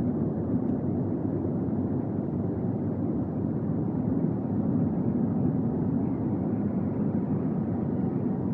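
Steady low rumble of engine and airflow noise heard inside the cabin of a Boeing 767-400ER airliner.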